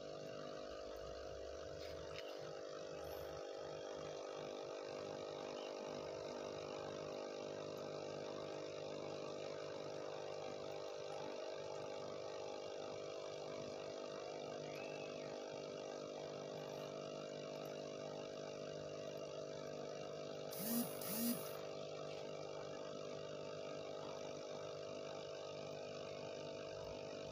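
Aquarium air pump humming steadily, driving a stream of bubbles in the tank. About three-quarters of the way through come two short, sharp sounds in quick succession.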